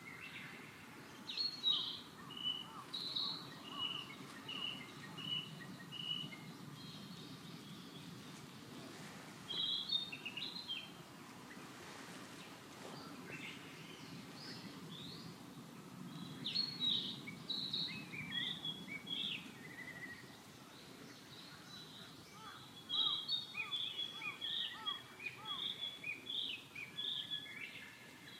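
A songbird singing in short phrases of high chirps and quickly repeated notes, four phrases with pauses between, over steady low background noise.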